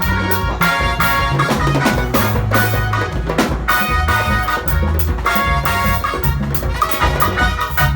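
Upbeat band music with a drum kit and a deep bass line over a steady beat.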